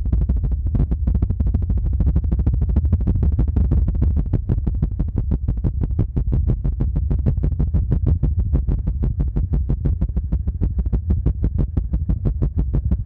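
ASMR 'helicopter' trigger: fast, even thumping pulses on the microphone, several a second, deep and low like a rotor's beat.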